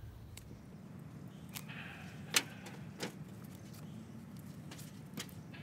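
Denim being spread out and handled on a tabletop: soft cloth rustling with about six light clicks and knocks, the loudest near the middle.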